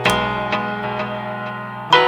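Samsung Galaxy S3 ringtone playing: a struck chord at the start rings and slowly fades, then a new run of quick, bright notes begins just before the end.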